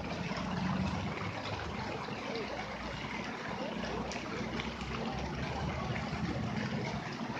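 Fountain jets splashing steadily into the basin, with a low hum underneath.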